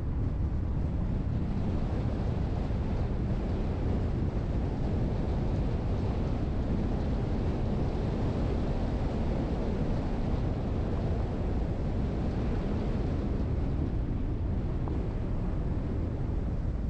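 Steady low rumble of a car being driven, road and wind noise, holding an even level throughout.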